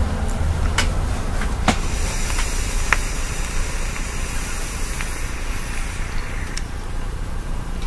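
A vape mod being hit on freshly rebuilt, re-wicked coils: a steady hiss of the coil firing and vapour being drawn and blown out, starting about two seconds in and lasting some four seconds, with a few light clicks.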